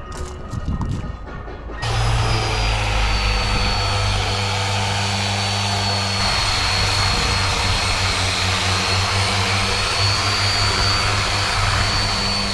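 A motor running steadily, with a steady high whine over a hiss and a low hum; it starts abruptly about two seconds in.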